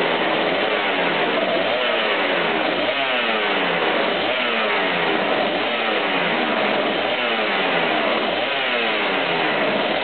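Suzuki RGV500's V4 two-stroke engine running with the throttle blipped again and again, a rising rev about every second and a half.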